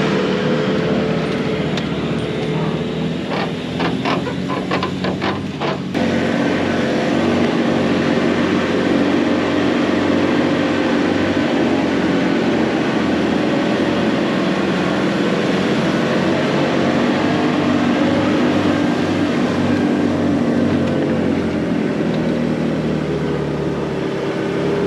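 4WD ute's engine running steadily under load as it tows a heavy boat through soft sand, with a quick run of clicks about three to six seconds in.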